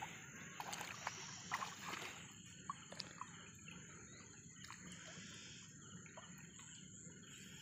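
Faint outdoor ambience at a reedy lake edge: a steady high-pitched insect drone with light water sloshing and scattered short chirps and clicks.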